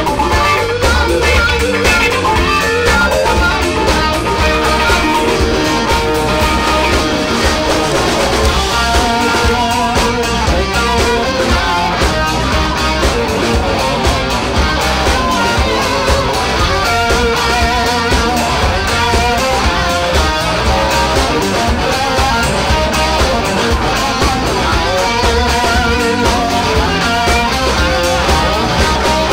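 Live blues-rock band playing an instrumental passage: two electric guitars over bass guitar and a Ludwig drum kit, with repeated guitar figures over a steady beat.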